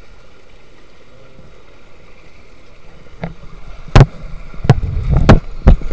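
Water running down a plastic tube waterslide, then about five loud, sharp knocks from about three seconds in as the rider sets off and the camera bumps against the slide.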